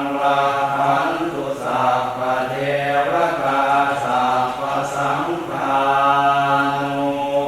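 Buddhist chanting in a low, steady monotone, phrase after phrase with short pauses between them.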